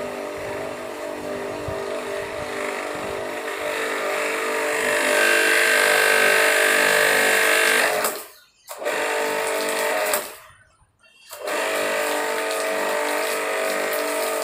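Ballorex KS-7 2300 W electric pressure washer's motor and pump running while the gun is held open to purge air from the line, water sputtering and then jetting out of the gun. It gets louder about five seconds in, cuts out twice around eight and ten seconds in, and starts again.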